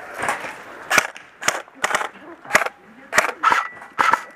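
Airsoft guns firing, about eight sharp single cracks at uneven intervals.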